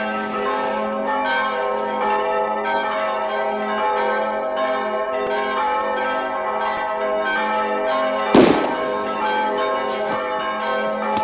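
Church bells ringing a fast peal of overlapping struck notes. About eight seconds in, a single loud rifle shot cuts across the bells.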